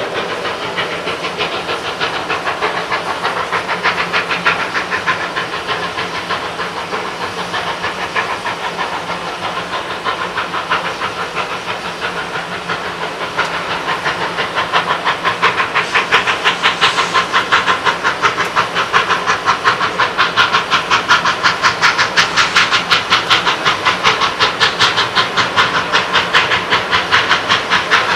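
Stack talk of D&RGW K-36 No. 482, a narrow-gauge 2-8-2 steam locomotive, working up the line toward the siding: rapid, even exhaust beats echoing off the canyon walls, growing louder from about halfway. Steam hiss from a standing steam locomotive runs underneath.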